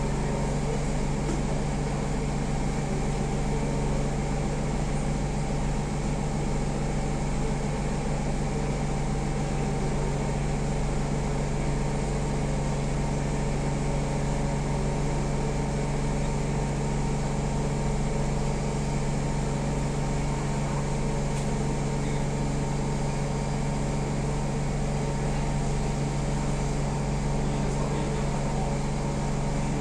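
Steady electrical hum of a stationary Siemens C651 train's air conditioning and onboard equipment, heard inside the car with the doors open.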